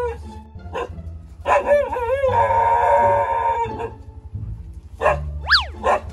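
Huskies howling: one long howl, wavering in pitch at first, starting about a second and a half in and holding for about two seconds, over background music. A brief up-and-down whistle comes near the end.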